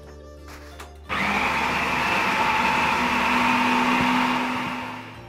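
Braun food processor switching on about a second in and whirring steadily as it minces raw shrimp, herbs and egg white into a paste. It winds down near the end.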